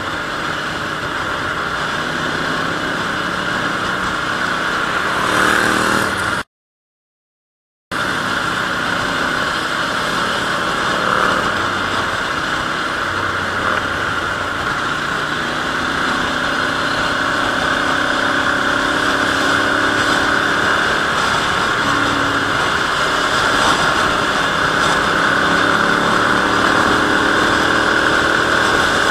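Ducati Monster's L-twin engine running at highway cruising speed over a steady rushing noise, its pitch drifting up and down gently with the throttle. The sound cuts out completely for about a second and a half some six seconds in.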